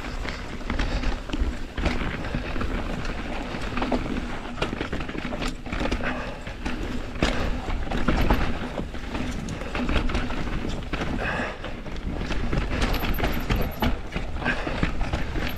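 Mountain bike riding down a dirt trail: tyres rolling over dirt and rocks, with frequent irregular knocks and rattles from the bike over a steady low rumble.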